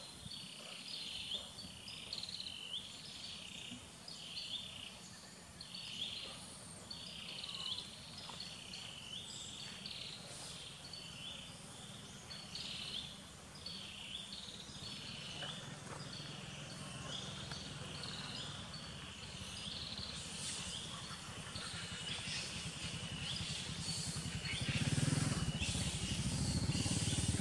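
Outdoor ambience with a bird calling over and over, a high call about once a second, giving way to denser high chirping later. A louder low rumble builds near the end.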